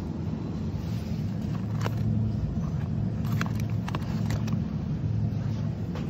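Steady low hum of supermarket refrigerated display cases, with a few light clicks and crinkles between about two and four and a half seconds in as a plastic-wrapped pack of sliced ham is handled.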